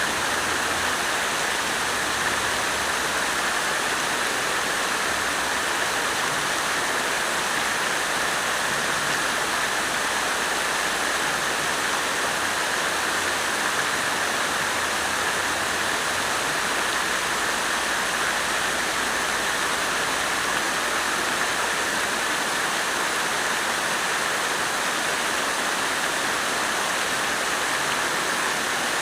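Garden fountain: water splashing and falling steadily into its basin.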